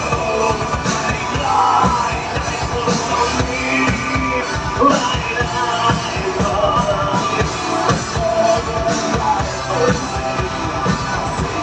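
Rock band playing live, a singer's voice over drums and guitars.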